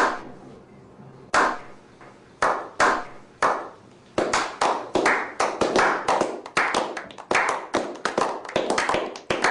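Hand claps, each with a short ringing echo. A few spaced claps come first, then about four seconds in they quicken to a steady run of about three a second.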